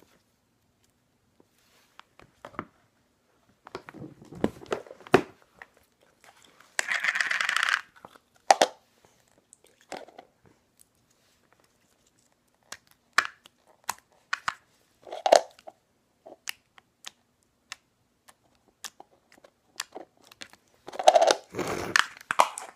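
Slime being poked and stretched by hand: scattered sticky clicks and crackles, with a short crinkly tearing sound about seven seconds in and a busier run of crackling near the end.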